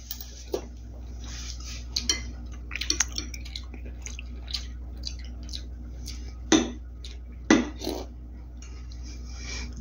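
Metal spoon clinking and scraping against a ceramic soup bowl while someone eats soup. The clinks are scattered, with a few louder ones from about six and a half to eight seconds in, over a steady low hum.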